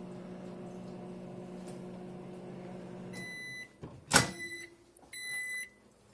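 Microwave oven running with a steady hum that stops about three seconds in as it beeps, followed by a loud click of the door being opened and another long high beep a second later.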